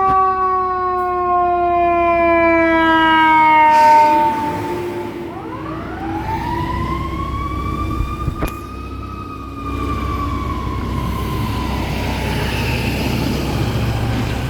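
Fire engine siren winding slowly down in pitch and fading about four seconds in. A second siren wail then rises for several seconds and sinks slowly away under the fire truck's engine and road noise, with one sharp click about halfway through.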